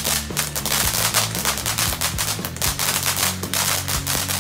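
Weco 'Ocean of Lights' garden fountain battery spraying sparks with a steady hiss and dense, rapid crackling pops, over low steady tones.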